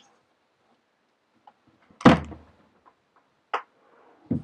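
Craft supplies being handled and set down on a desk. A loud thud comes about two seconds in, a sharp click follows a second and a half later, and another thud comes near the end.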